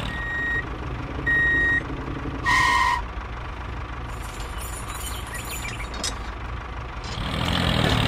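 Vehicle reversing-alarm beeps: two short high beeps, then a louder, lower honk about two and a half seconds in, over a steady low engine hum.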